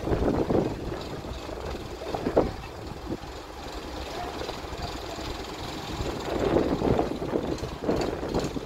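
Diesel engine of an Escorts mobile crane running, a steady low rumble with a few louder surges.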